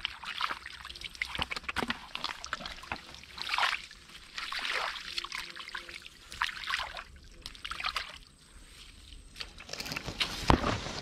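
Water sloshing and splashing in short, irregular bursts, with a sharp knock near the end.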